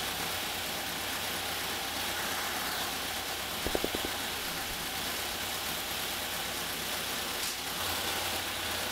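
Air-cooled flat-four engine with twin throttle bodies and electronic fuel injection idling steadily, with a few short clicks about four seconds in as the throttle linkage is handled with a wrench.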